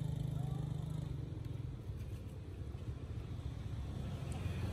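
Low drone of a motor vehicle engine running, fading about a second in and growing louder again near the end.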